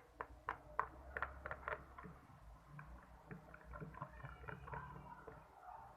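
Sticky glue-and-detergent slime being worked with a mixing stick, a quick series of wet clicks and taps in the first two seconds, then softer squelching.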